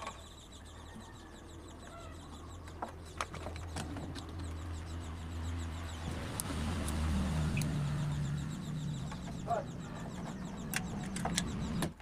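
A low, steady rumble that swells in the middle and fades near the end, with a few small clicks of wire connectors being handled and pushed onto a microwave oven's high-voltage capacitor terminals.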